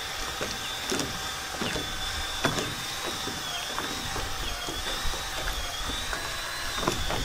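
Handheld power drill running steadily under load, driving a long, dull, rusty paddle bit through a wooden piling. The motor whine dips slightly in pitch now and then as the bit bites, with irregular knocks and crackles of the bit chewing through the wood.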